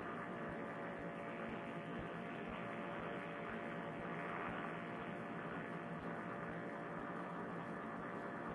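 Paramotor trike's engine running steadily in cruising flight, an even drone with a few steady tones, muffled and thin as picked up through a Bluetooth headset microphone.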